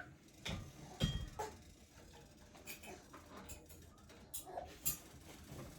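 A spoon stirring thick, clumpy sauce in a pan, with scattered faint clicks and knocks of the spoon against the pan.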